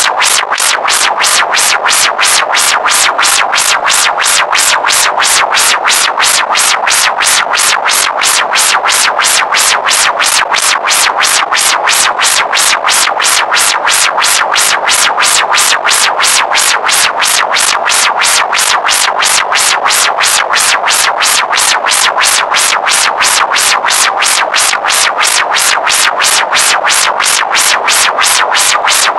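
Electronic synthesizer music: a short loop repeating in a rapid, even pulse, unchanging throughout.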